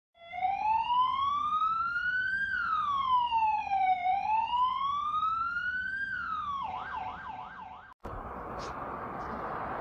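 Police-style siren: two slow rising and falling wails, then a quick yelp for about a second and a half that cuts off abruptly. After the cut, a steady outdoor background noise.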